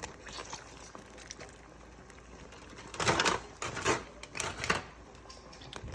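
Hard shells of boiled blue crabs knocking and clattering as they are lifted out of the pot and set down: a longer clatter about three seconds in, then a few sharp knocks over the next two seconds.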